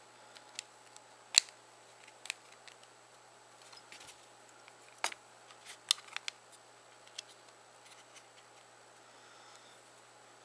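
Sharp little plastic clicks and taps from the side rails and housing of a BlackBerry 8300-series phone being handled and pressed into place by hand, about ten clicks scattered through the first seven seconds.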